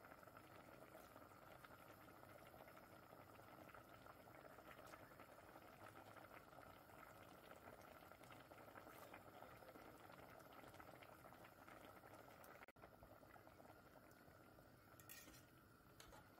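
Faint steady bubbling of a fish, tomato and chana daal mixture boiling in an open pressure cooker, being cooked down uncovered until the liquid dries off.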